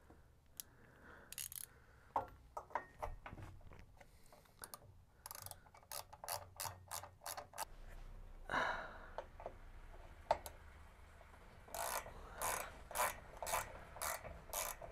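Socket ratchet wrench clicking as a bolt is tightened, in short runs of a few clicks a second with pauses between.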